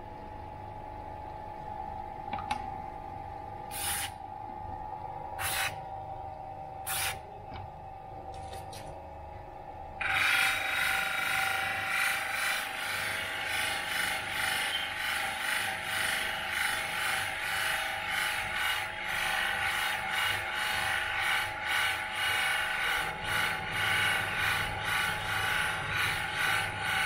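Water-fed horizontal polishing wheel spinning with a steady hum and a few sharp clicks; about ten seconds in, a K9 crystal paperweight is pressed against the wet wheel and a loud, rough grinding hiss takes over, swelling and fading as the piece is worked: polishing the crystal's waist.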